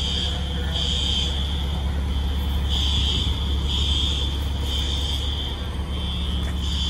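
Building fire alarm sounding: a high electronic beep repeating about once a second, over a steady low rumble.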